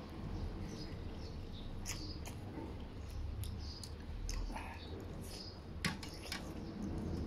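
Eating sounds: glass noodles being slurped and goose being chewed from porcelain bowls, with a few light clicks of chopsticks against the bowls, one sharper click about six seconds in.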